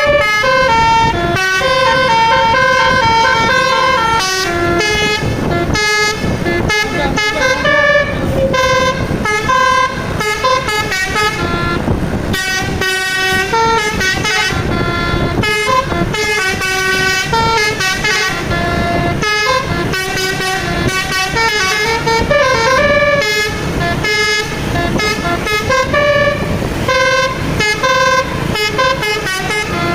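Indonesian bus 'telolet basuri' musical horn playing a tune, a quick run of stepped horn notes that changes pitch every fraction of a second and goes on without a break.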